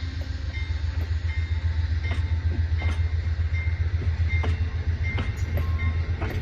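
Amtrak passenger train rolling past with a steady low rumble, its wheels clicking irregularly over the rail joints.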